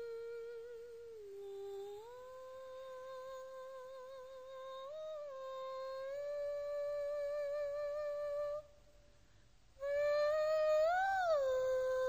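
A single high voice humming a slow, wordless melody in long held notes with vibrato, sliding up and down between them. It breaks off for about a second, then comes back with a brief swell upward.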